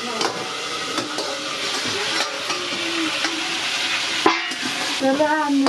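Food sizzling in hot oil in a steel kadai while a metal spatula stirs and scrapes it, with one sharp knock of the spatula about four seconds in.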